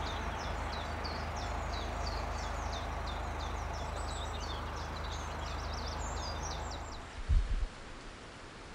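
Songbirds singing busily in quick short chirps over a steady low rumble. About seven seconds in the sound changes abruptly: wind buffets the microphone in a couple of low thumps, then a quieter windy hush.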